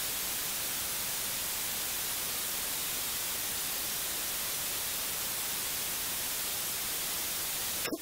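Steady, even hiss of background noise with no other sound: recording hiss and room tone.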